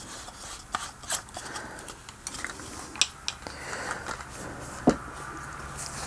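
Telescopic selfie stick being handled and extended: sections sliding and rubbing, with a handful of small sharp clicks.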